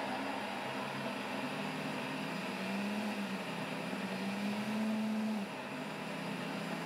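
High-speed blender motor running steadily as it grinds soaked rice and water into a smooth rice paste, its hum wavering and stepping down a little about five seconds in.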